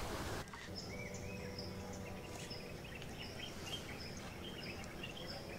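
Faint forest ambience: scattered short bird chirps over a thin, steady high-pitched insect hum.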